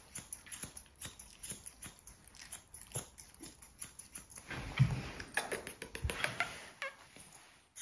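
Small Maltese–Lhasa Apso cross dog licking and smacking its lips: a string of soft, wet clicks, busiest and loudest about five to six seconds in.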